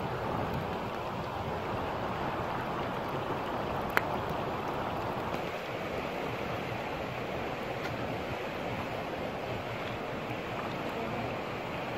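Steady rush of a shallow river flowing over stones, with a single sharp click about four seconds in.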